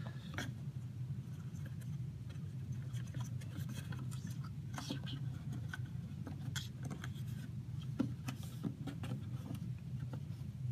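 Hands working a rubber gasket into a Gaggia Brera's plastic grinder housing: faint scattered clicks and rubbing, over a steady low hum.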